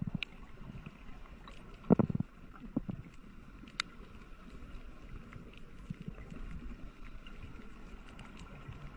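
Underwater ambience picked up by the camera: a steady low rumble and hiss with scattered sharp clicks, and a louder rumbling burst about two seconds in.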